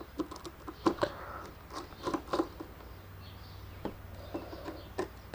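Scattered light clicks and taps from a precision screwdriver and small metal and plastic parts being handled while an iPhone 5c is taken apart, in short clusters about a second in, around two seconds in, and near the end.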